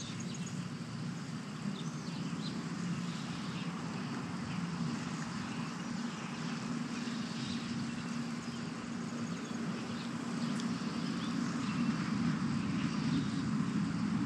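A steady low motor hum, growing slightly louder toward the end.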